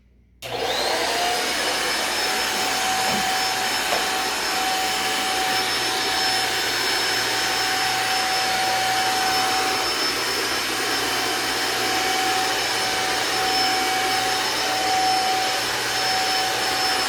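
Vacuum cleaner switched on about half a second in: the motor spins up with a rising whine, then runs steadily at full speed.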